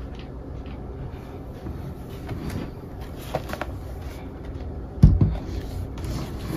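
Handling noises from unpacking and setting up a laptop: a few light clicks and scrapes, then one dull thump about five seconds in, over a steady low rumble.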